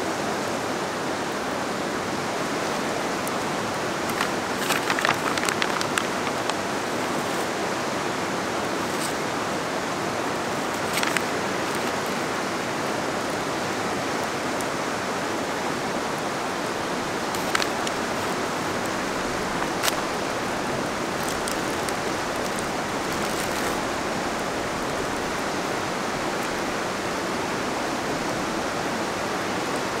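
Steady rush of a river running close by. A cluster of soft clicks and rustles about four to six seconds in, and a few single clicks later, from hands working food and utensils in a cast-iron dutch oven.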